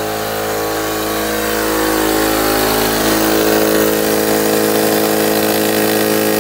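Harbor Freight air compressor running steadily, a constant mechanical drone with a fixed pitch.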